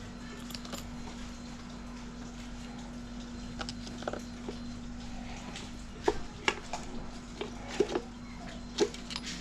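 Scattered sharp clicks and light metallic taps from tools and engine parts being handled during an engine teardown, with several louder knocks in the second half, over a steady low hum.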